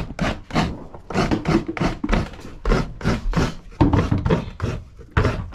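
Half a fresh coconut being grated on a seated coconut scraper, its flesh rasped against the serrated metal blade in quick, even strokes, about three a second. Only the middle of the flesh is left, so the grating is nearly done.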